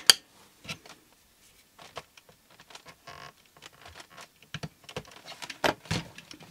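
Scattered small clicks and taps of hands and a flat metal tool handling the circuit board and plastic chassis of an opened robot vacuum cleaner, with a sharp click right at the start and a few louder knocks about five and a half seconds in.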